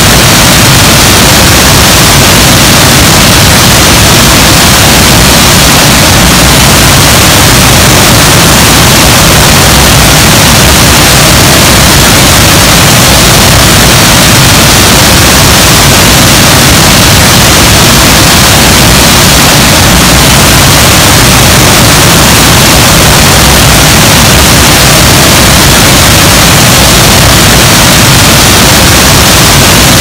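Large waterfall: a loud, steady rush of falling water, an even hiss that spreads from deep rumble to high pitches and does not change.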